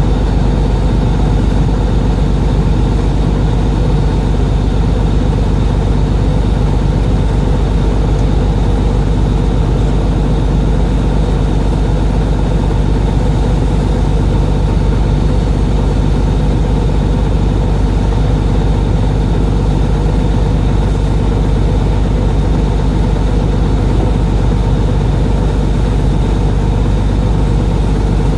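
Boat engine running steadily at low, even revs with a deep hum.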